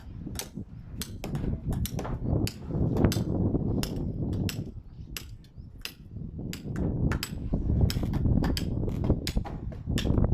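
Hammers knocking on timber while the rooftop formwork is built: many sharp, irregular strikes, several a second, over a steady low rumble.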